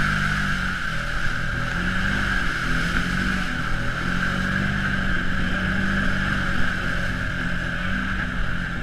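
ATV engine running as the machine drives along a muddy trail, its pitch rising and falling a little with the throttle, heard close to the engine.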